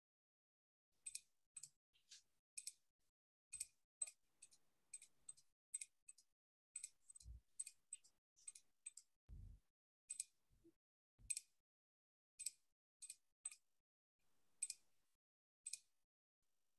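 Faint, irregular clicking, about twenty-five sharp clicks spread unevenly, with two dull low thumps near the middle, typical of computer keys or mouse buttons heard over a video-call microphone.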